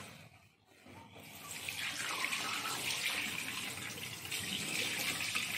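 Kitchen tap turned on, water starting about a second in and then running steadily, splashing onto frozen fish steaks in a plastic tub in a stainless steel sink.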